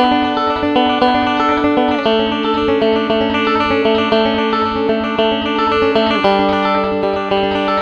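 Five-string Deering resonator banjo fingerpicked in quick, continuous rolls, the chord changing about two seconds in and again about six seconds in.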